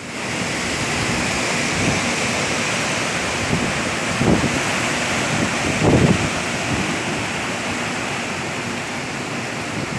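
Heavy downpour in high wind: a steady hiss of rain, with wind gusts buffeting the microphone a few times, strongest about four and six seconds in.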